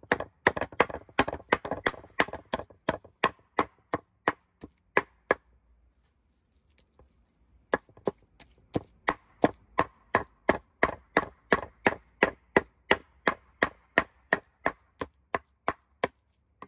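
Meat cleaver chopping raw chicken on a wooden cutting board: quick, even strokes about three or four a second, stopping for about two seconds a third of the way in, then starting again.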